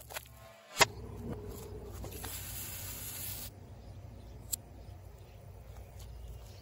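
A single sharp click just under a second in, then a hiss lasting about a second, and a smaller click later on, over a faint low rumble.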